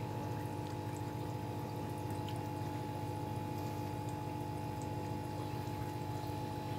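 A motor hums steadily at one unchanging pitch over the faint sound of running water.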